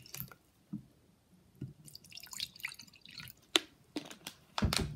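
Water pouring and dripping from a plastic water bottle into a clear plastic tub, in scattered small splashes and drips. Near the end come sharper plastic clicks and knocks as the bottle is handled and capped, the loudest just before the end.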